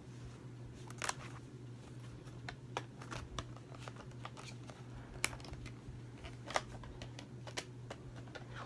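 Scattered light clicks and taps from handling a disc steelbook and its discs, over a steady low hum.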